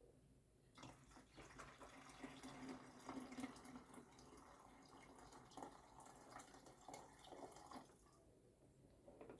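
Water being poured into the water tank of a portable evaporative air cooler. The pouring starts about a second in and stops about a second before the end.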